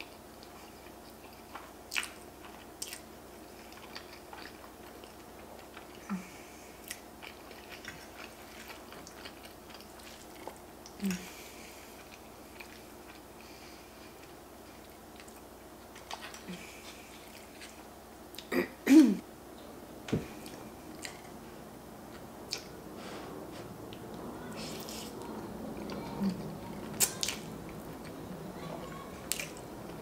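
Close-up eating sounds of pasta carbonara: chewing and slurping of spaghetti, with scattered short clicks of forks against the plate. A louder pair of sharp sounds comes a little past halfway.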